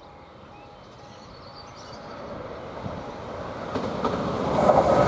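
Greater Anglia Class 755 train approaching along the track, its noise building steadily and becoming loud over the last second or so.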